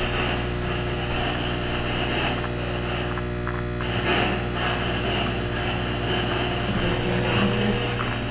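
A steady low electrical hum with several level, unchanging tones, holding an even loudness throughout.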